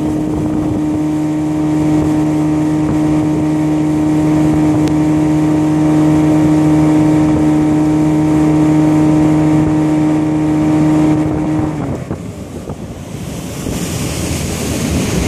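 Boat's outboard motor running at a steady speed over wind on the microphone and water rushing past the hull. About twelve seconds in the engine note drops away, leaving only wind and water noise.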